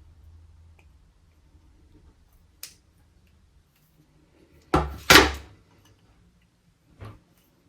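Knocks and clicks from working a circlip into a motorcycle brake master cylinder by hand: a sharp click, then two loud knocks close together about halfway through, and a lighter knock near the end.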